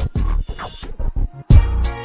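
Background music with a heavy bass beat; the track drops out briefly around the start, and a strong bass-and-drum hit lands about one and a half seconds in.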